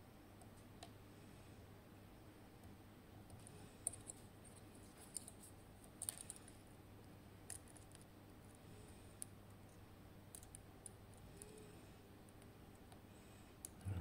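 Faint, irregular small metal clicks of a lock pick working the Christmas-tree security pins inside an Assa 700 pin-tumbler cylinder under light tension, a dozen or so scattered clicks.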